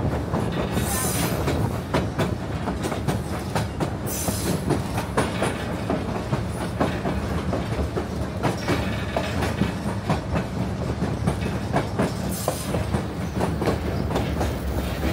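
Narrow-gauge passenger train running along the track, heard from the open platform between cars: the cars' wheels clicking and clacking irregularly over the rails above a steady low rumble.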